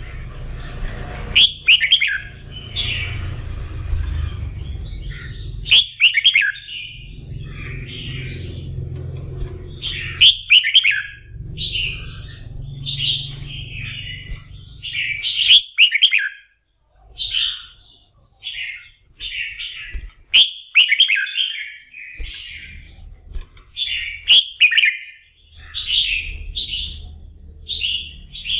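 Red-whiskered bulbul singing a run of short, warbled whistled phrases, one after another, as a rousing competition song. Sharp clicks come every few seconds, and a low rumble comes and goes underneath.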